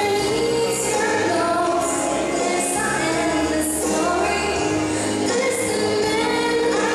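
A girl singing solo into a handheld microphone over instrumental backing music.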